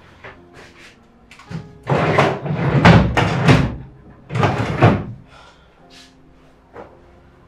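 Knocks and rustling from someone searching through an office desk, handling its drawers and papers, with two longer bursts of noise about two and four and a half seconds in. Quiet background music plays underneath.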